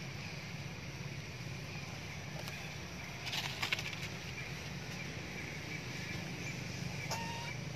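Outdoor ambience with a steady low hum and faint hiss. A brief burst of clicking rustles comes a little over three seconds in, and a short high chirp near the end.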